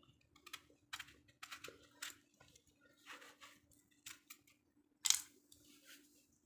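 Knife cutting watermelon: an irregular run of crisp crunching cuts and sharp knocks, the loudest about five seconds in.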